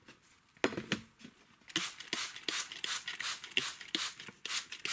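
Handheld trigger spray bottle misting the soil of a seed tray: a quick run of short hissing spritzes, about three to four a second, starting a little under two seconds in after some brief handling of the bottle.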